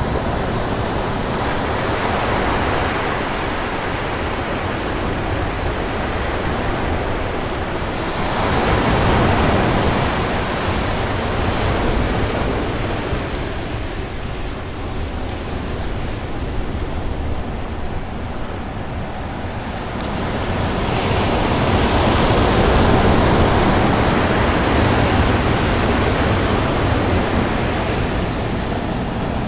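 Sea surf breaking on the beach: a continuous rush of waves, swelling louder as bigger waves break about eight seconds in and again around twenty-one seconds.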